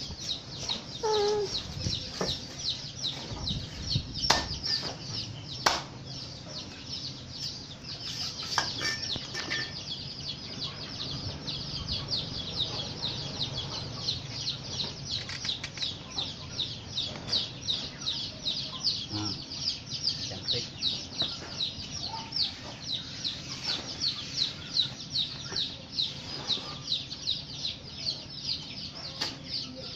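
Yard sounds: a rapid, even run of short high chirps goes on throughout, with a chicken clucking briefly at the start. A few light knocks sound in the first ten seconds as pieces of banana stalk are handled.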